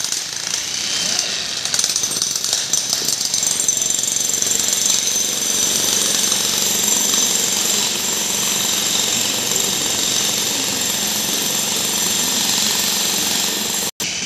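Jackhammer hammering steadily at a construction site: a fast, continuous rattle that cuts out briefly near the end.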